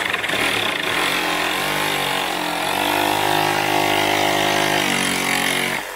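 Milwaukee Fuel brushless compact reciprocating saw cutting through a fibreglassed fairing block. It starts suddenly, runs at a steady speed for about six seconds and stops just before the end.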